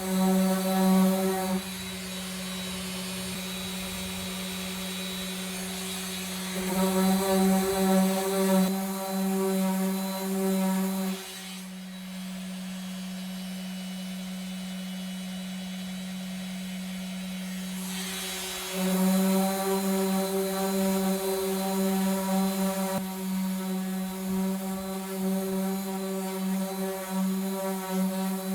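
Power sander running steadily, sanding down body filler over fiberglass patches on an RV's outer wall. It gets louder and rougher in stretches: at the start, again from about seven to eleven seconds, and from about nineteen seconds on.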